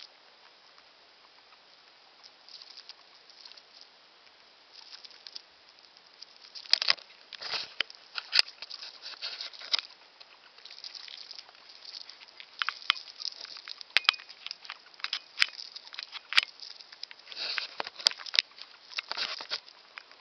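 Hamster eating close to the microphone: irregular crunching and nibbling with sharp little clicks, sparse at first and busier from about a third of the way in.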